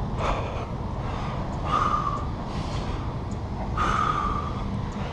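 A man's strained, heavy breaths, twice, about two seconds apart, from the effort of squeezing bolt cutters on a padlock, over a steady low rumble.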